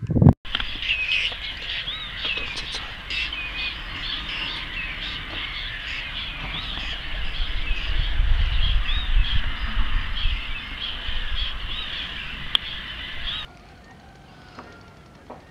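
A dense chorus of many waterbirds calling together from a flock, short high calls overlapping continuously, over a low rumble that swells in the middle. The calling cuts off abruptly about thirteen seconds in, leaving only faint sound.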